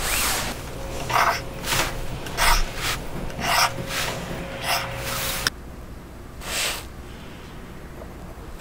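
Mechanical pencil drawing short lines on a wooden block: a series of brief strokes, about seven in quick succession, then one more after a pause.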